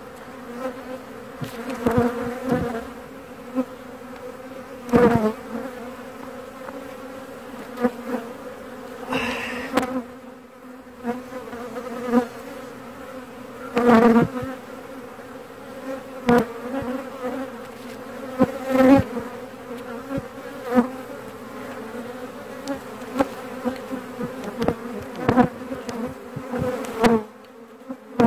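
A colony of honeybees buzzing over an open hive, a steady hum. Frequent short, sharp knocks and clicks come through it as wooden hive frames are handled and set back into the box.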